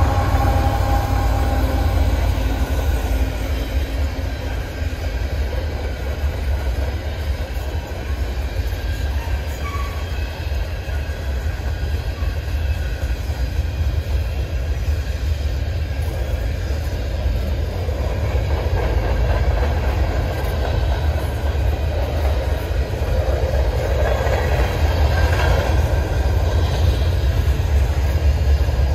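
CN freight train passing: the diesel locomotive's engine tones fade in the first few seconds, then a long string of covered grain hopper cars rolls by with a steady low rumble of steel wheels on rail. From about two-thirds of the way in the wheel clatter grows louder, with a faint wheel squeal.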